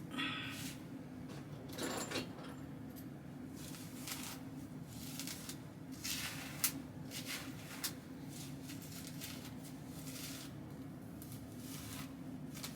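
Scattered short rustles and light clicks of close handling, over a steady low hum.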